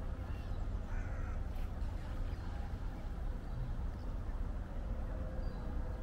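A bird gives a harsh, crow-like call about a second in, over a steady low rumble.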